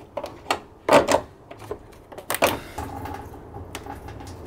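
Clicks and knocks of hands and tools working the large coolant hose and its clip off the radiator, the loudest knocks about one second and two and a half seconds in. A faint steady rushing follows from about three seconds in.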